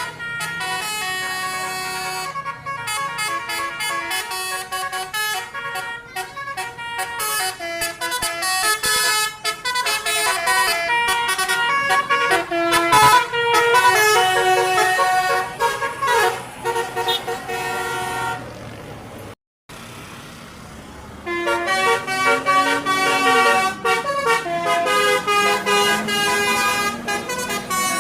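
Basuri (telolet) musical bus horn playing a tune: a run of steady horn notes stepping quickly from pitch to pitch. The tune breaks off briefly a little past two-thirds of the way through, then resumes over a low note that slides up and down.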